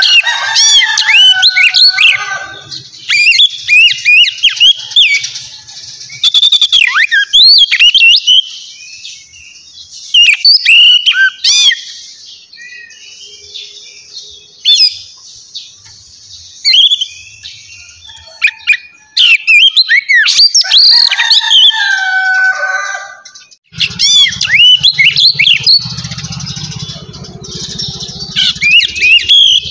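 Small birds chirping loudly in quick bouts of rising and falling notes, with short lulls between bouts. A low steady hum comes in about three quarters of the way through.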